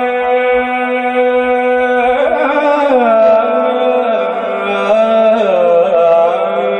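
A male naat reciter's voice, amplified through a handheld microphone, holding one long sung note with vibrato. About two seconds in it glides down through a few ornamented turns and settles on lower held notes.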